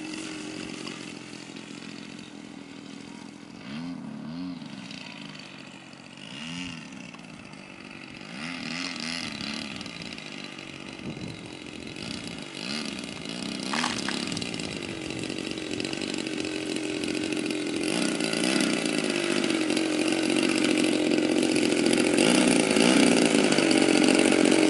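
35cc two-stroke gas engine of an Sbach RC aerobatic plane, running as the plane comes in to land. Its pitch rises and falls in several swells during the first half, then it grows steadily louder as the plane comes in close.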